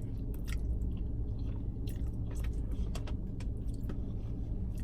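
A person chewing a mouthful of creamy fettuccine alfredo, with scattered wet mouth clicks, over a steady low hum.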